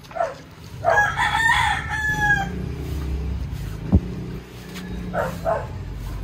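A rooster crowing once, a long call of about a second and a half that falls at the end, with two shorter calls about five seconds in. A single sharp knock sounds about four seconds in, over a steady low hum.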